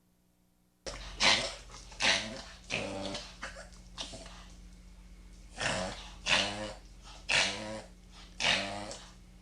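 A dog reverse sneezing: repeated sharp, noisy inhalations pulled in hard through the nose, about two a second. They start suddenly about a second in and run in two bouts with a pause of about a second between.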